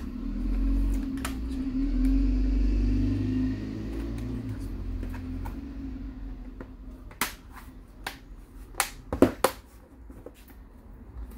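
Hands handling the plastic case of an Acer Chromebook: a low rubbing rumble for the first few seconds, then scattered sharp plastic clicks and knocks, loudest in a quick cluster about nine seconds in.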